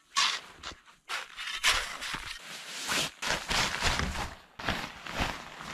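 Crunching in packed snow and rustling of a canvas tarp being handled, in irregular bursts, the loudest about a quarter second in and about a second and a half in.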